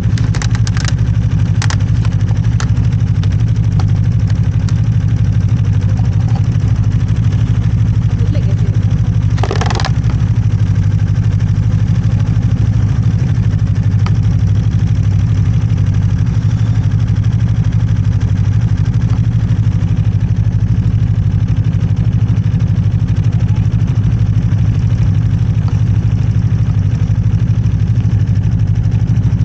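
Snowmobile engine running at a steady pitch throughout, with a few short clicks in the first seconds and a brief rushing noise about ten seconds in.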